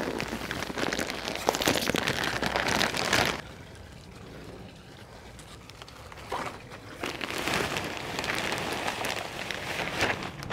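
Potting mix pouring out of a plastic bag into a large planter, a rushing, rain-like hiss with the crinkle of the bag, for about three seconds. After a quieter lull, a second bag starts pouring about seven seconds in.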